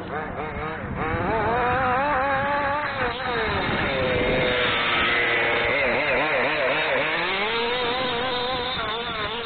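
Two-stroke Wild Child engine of a 1/5-scale FG Baja Super Comp 2 RC buggy being driven hard, its pitch rising and falling with the throttle. A little past halfway there is a run of quick throttle blips.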